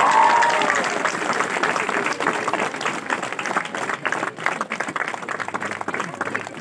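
A small crowd applauding, many hands clapping steadily and slowly getting quieter.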